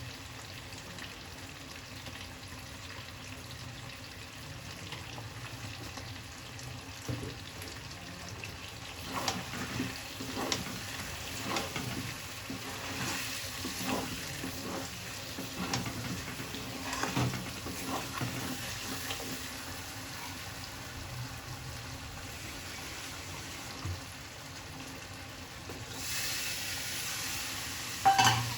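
Chicken frying in a pan, sizzling steadily, with clicks and scrapes of a stirring spoon through the middle. The sizzle grows louder near the end, and there is a sharp knock just before the end.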